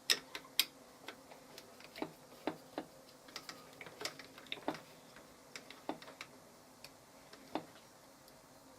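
Small hand tools on a 4BA mounting screw and nut: irregular light metallic clicks and taps as the transformer's fixing is tightened, the loudest right at the start.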